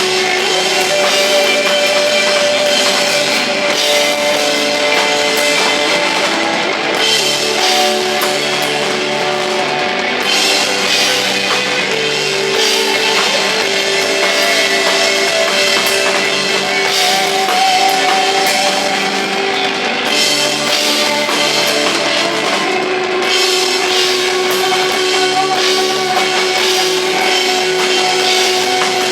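A rock band playing live: drum kit with cymbals, electric guitar and bass, loud and steady, with long held guitar notes.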